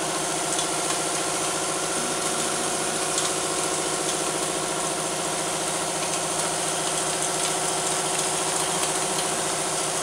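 FJZ-4 vial powder filling, stoppering and capping machine running: a steady mechanical hum of several even tones with a fast, even pulsing through it, and a few faint clicks.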